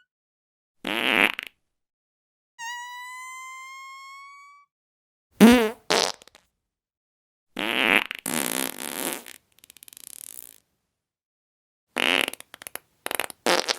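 A run of separate fart sound effects with short gaps between them: rasping bursts, one long thin squeaky whistle that rises slightly in pitch, a loud wavering one, a longer sputtering one, and a cluster of short quick toots near the end.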